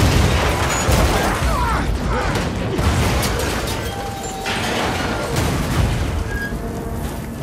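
A wrecked truck jammed against the side of a moving passenger train car and dragged along the track: continuous grinding and screeching of metal with repeated crashing impacts.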